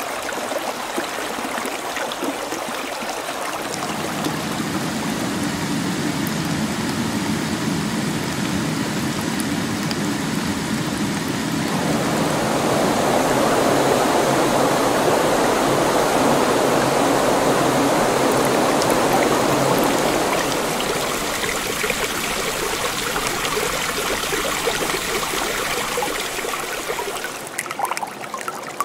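Water spraying from a garden hose onto an elephant calf and the ground: a steady hissing splash that swells louder around the middle and eases off near the end.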